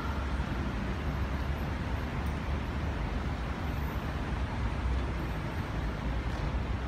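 Steady outdoor background noise: a low, even rumble like urban traffic, with no distinct events.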